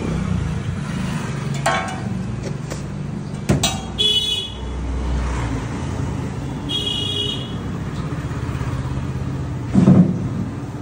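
Steady low roar under a wok of chowmein on a street stall's gas burner, with a few sharp knocks, the loudest near the end, and two short horn-like toots about four and seven seconds in.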